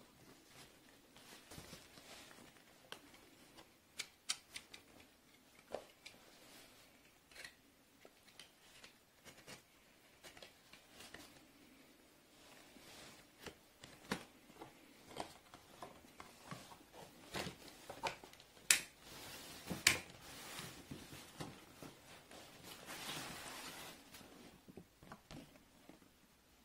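Paperboard phone retail box being handled and opened by hand: scattered taps, clicks and light scrapes of cardboard, with a longer rustle of the inner box sliding against the sleeve near the end.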